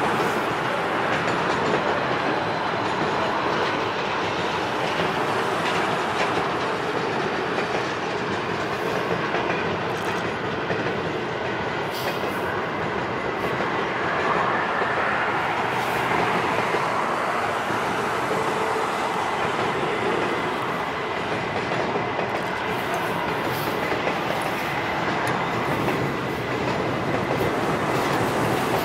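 Double-stack container cars of a CN freight train rolling steadily across a steel deck truss bridge: a continuous rumble of wheels on rail with scattered clicks. A faint high wheel squeal joins in the second half.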